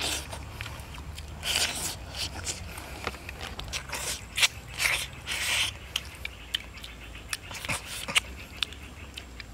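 A person chewing and smacking while eating eel and fresh greens, with irregular sharp clicks and a few longer wet slurping patches.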